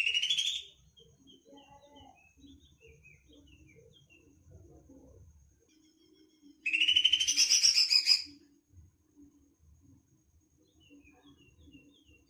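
Green leafbird (cucak ijo) singing in two loud bursts, one right at the start and one of about a second and a half in the middle, with faint chirps between them. The bird is agitated, singing back at a master-song recording.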